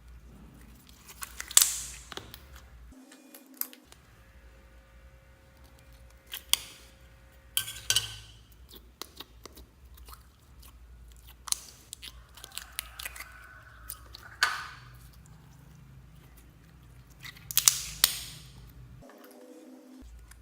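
Slime being squished and mixed by hand, with sharp pops and crackles every few seconds and softer squelching between them.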